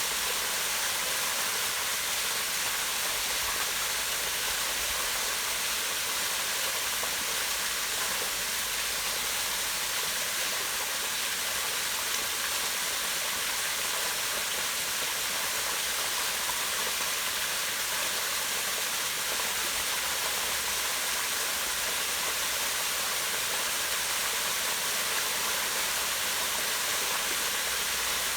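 Small waterfall falling down a rock face into a pond: a steady, unbroken rush of splashing water.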